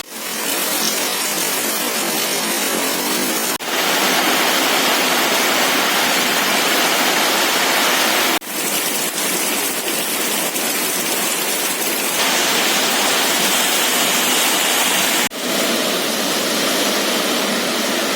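Rain and wind making a loud, steady hiss, which drops out briefly three times, about 3.5, 8.5 and 15 seconds in.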